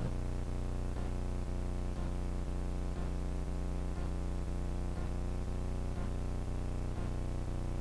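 A steady low buzzing hum, one unchanging drone of many evenly spaced tones, with faint soft ticks about twice a second.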